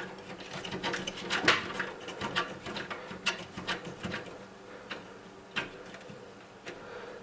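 Irregular small clicks and taps of the screws being fastened through a graphics card's metal bracket into a PC case, with light handling of the card and case.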